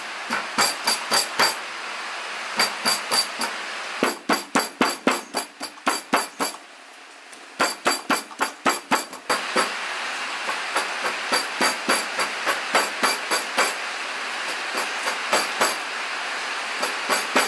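Cleaver chopping raw meat on a wooden cutting board, mincing it with quick repeated strokes of about four or five a second in short runs. There is a brief pause a little before halfway, and a steady hiss sits underneath.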